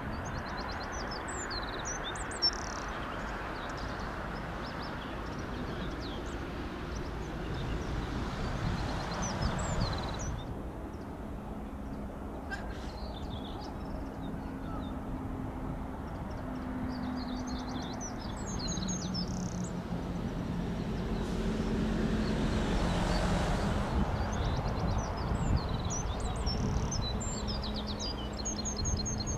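Small birds chirping in short bursts, about a second in, again after the middle and near the end, over a steady rushing background noise with a faint low hum that wavers in the second half.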